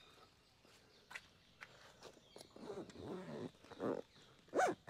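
A dog whining: a few short rising and falling whines in the second half, the loudest near the end, after a few light clicks.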